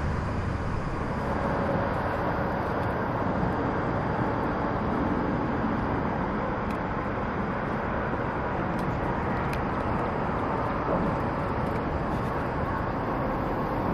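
Steady outdoor background noise: an even low rumble with no distinct source standing out, and a few faint ticks.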